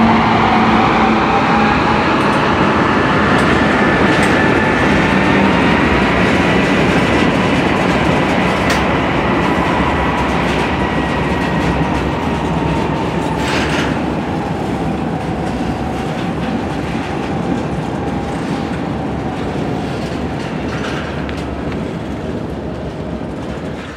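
Covered hopper cars of a long BNSF freight train rolling past, a steady clattering rumble of wheels on rail. Over it runs a thin, high wheel squeal that rises a little over the first few seconds, then slowly sinks.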